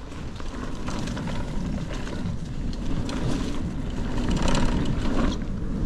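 Wind rushing over the microphone and mountain-bike tyres rolling on a dirt trail, a low rumble with a scatter of gravelly crackle, growing steadily louder as the bike gathers speed.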